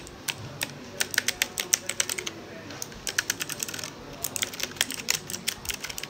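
Mechanical keyboard keys being typed in quick flurries of clicks, with two short pauses near the middle.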